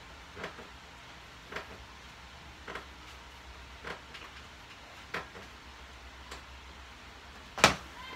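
Hanging leg raises on a power tower, with a short tick at each rep, six in all, about one every 1.2 seconds. A single loud knock comes near the end as the lifter comes down off the frame.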